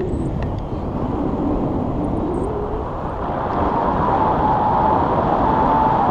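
Wind buffeting an action camera's microphone in paraglider flight, a steady low rumble. A faint held tone comes in about four seconds in.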